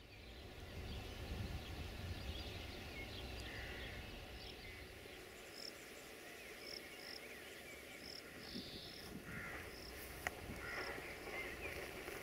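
Faint outdoor ambience at the trackside: birds chirping and short repeated high chirps over a low rumble, with a single sharp tick about ten seconds in.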